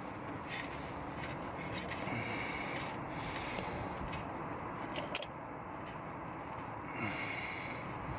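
Rubbing and scraping of hands working a part into place, with a few light clicks, while an ABS wheel-speed sensor and its wiring are fitted at the wheel hub.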